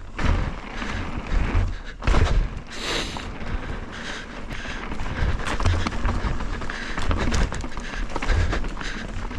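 Mountain bike being ridden over a rocky trail: tyres crunching and the bike rattling and knocking over rock, with gusts of wind rumbling on the microphone.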